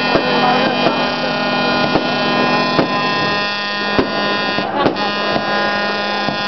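Fireworks going off in scattered sharp pops and bangs at irregular intervals, over a steady droning hum.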